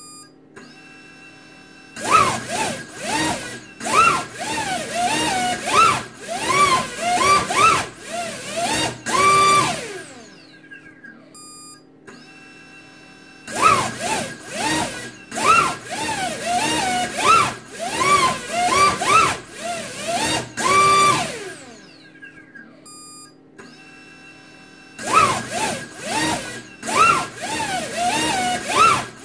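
Brushless drone motor driven by a Flycolor Raptor BL_S Pro 50A ESC on a thrust stand, revved in quick throttle punches. Its whine rises and falls with each punch. The motor spins down with a falling whine about ten seconds in and again about twenty-one seconds in, then runs up again.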